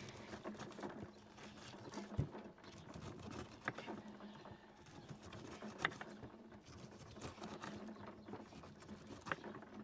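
Knives cutting fruit on wooden cutting boards: faint scattered taps of the blades against the wood, a few seconds apart, over a faint steady hum.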